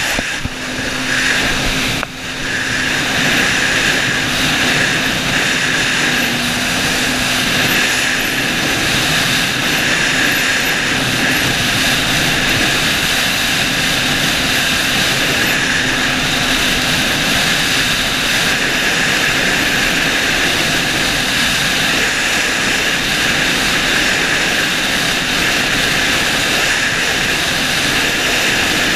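Yamaha FX SHO WaveRunner running at speed, its engine and jet drive a steady drone under the rush of wind and water. The level briefly dips about two seconds in.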